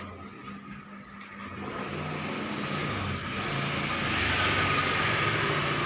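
Electric hair clipper buzzing steadily while cutting hair, growing louder about two seconds in as it works close to the head.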